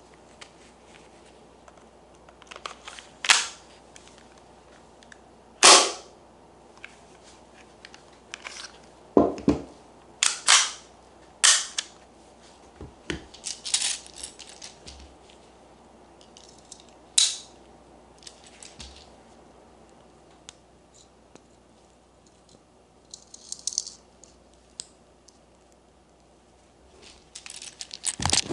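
Marzen Walther PPK gas-blowback airsoft pistol firing single shots at irregular intervals, about ten sharp cracks with smaller clicks and rattles of the action between them.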